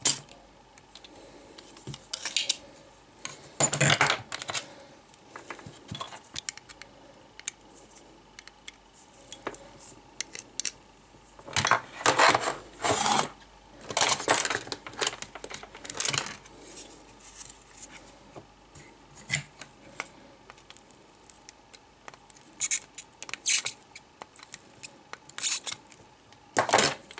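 Scattered sharp clicks, taps and short clatters of small metal tools and parts handled on a workbench while a spring-loaded desoldering pump clears solder from a circuit board's through-holes. The loudest clatters come about four seconds in, twice in quick succession around twelve to thirteen seconds, and just before the end.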